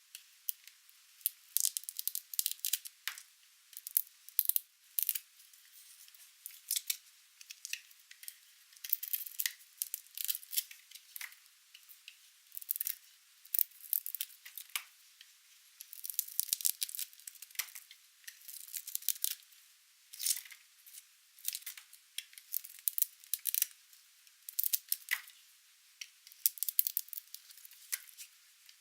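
Knife cutting through dry, painted soap: crisp crackling and snapping in short bursts every second or two, with brief quiet gaps between cuts.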